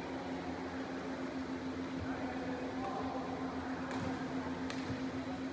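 Steady fan-like hum and hiss of a sports hall, with about four faint, sharp clicks of badminton rackets striking the shuttlecock during a rally, the clearest in the second half.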